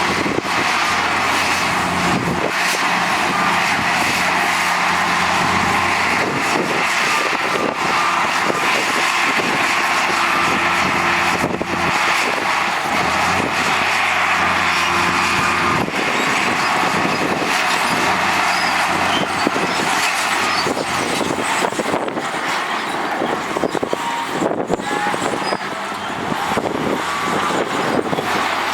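Heavy earthmoving machinery's diesel engine working steadily under load, with frequent short knocks and clanks throughout.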